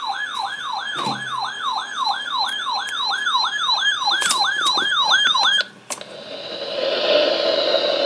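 Weather alert radio's alarm siren: a loud falling whoop repeating about three times a second, cutting off suddenly about five and a half seconds in. A steady static hiss from the radio follows.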